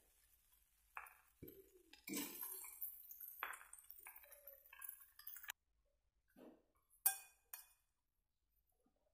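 Metal spatula scraping and clinking against a wok as fried rice is stirred, with a few sharp clinks near the end.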